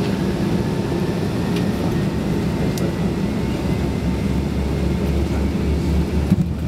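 Steady roar of a Boeing 767-336's Rolls-Royce RB211 engines and the airflow, heard inside the passenger cabin, with a deep hum and a faint whine that rises slowly. A short knock comes about six seconds in.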